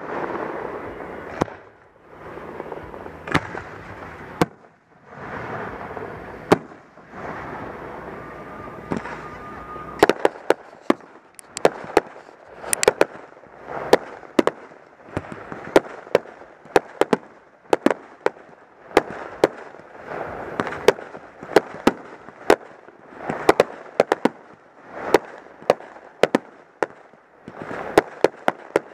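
Aerial fireworks going off: a few sharp bangs over a rushing hiss for the first ten seconds or so, then a rapid run of sharp bangs, several a second.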